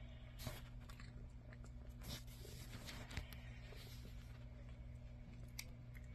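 Cat eating from a food bowl: faint chewing with a few short sharp clicks scattered through, over a steady low hum.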